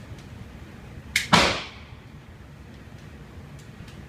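Two gunshots on an indoor range a fraction of a second apart, about a second in. The second is much louder and its echo fades off the walls.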